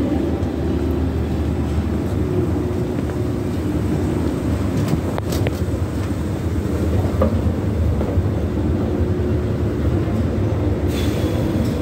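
Running escalator giving a steady low mechanical rumble while being ridden up. There are a couple of faint clicks about five seconds in and a brief hiss near the end.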